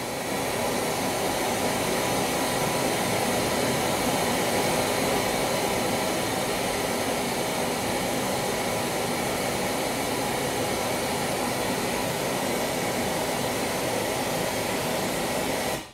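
Pink noise test signal played through a line-array loudspeaker: a steady, even hiss that starts at once and cuts off near the end. It is the measurement signal for checking the speaker's response and the amplifier's latency.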